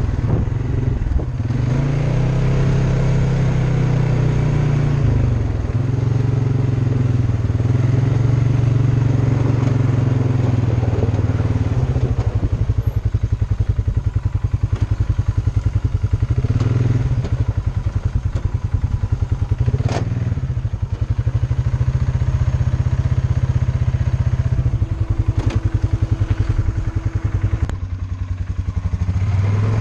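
Polaris Sportsman ATV engine running while riding a trail, its note rising and falling, settling into a lower, fast even pulsing for the second half. A single sharp knock comes about two-thirds of the way through.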